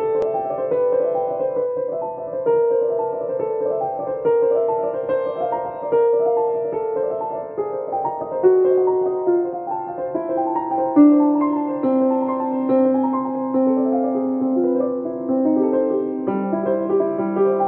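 Solo acoustic piano playing a classical-style piece in C major, many notes sounding over one another. Lower bass notes come in near the end.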